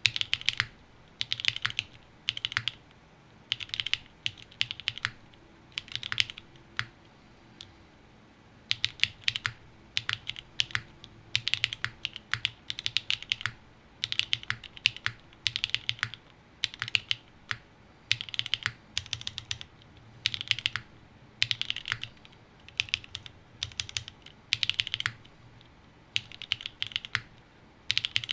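Typing on a TGR Tomo custom mechanical keyboard with an aluminium plate, broken-in NovelKeys Cream linear switches lubed with Krytox 205g0, and GMK keycaps. The keystrokes come in runs of a second or two with brief pauses between them.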